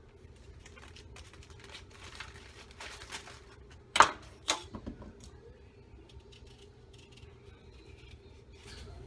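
Light scraping and tapping from knife work on a green papaya, with two sharp knocks about four seconds in, the first the loudest, followed by a few smaller taps.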